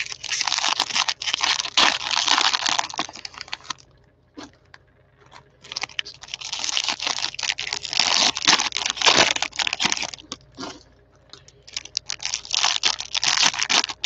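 Cellophane-wrapped trading card packs being torn open and crinkled by hand, in three spells of dense crackling with short pauses between.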